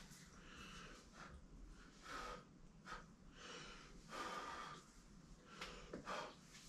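A person's quiet, short breaths and sniffs, roughly one a second.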